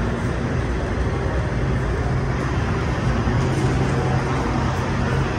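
Steady low hum over a constant background rumble, unchanging throughout.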